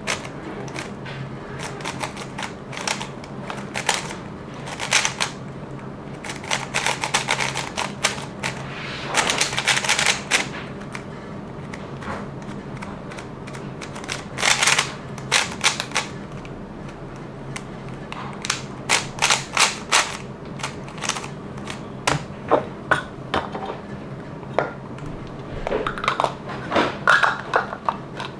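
Plastic clicking and clacking in irregular bursts of rapid clicks, typical of a Moyu 3x3 speedcube being turned and handled, over a steady low hum.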